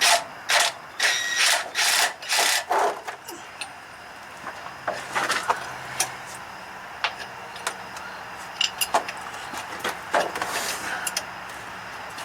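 A hand ratchet turning a bolt on a truck PTO mounting plate: about seven quick rasping strokes in the first three seconds, then scattered metallic clicks and a few shorter strokes.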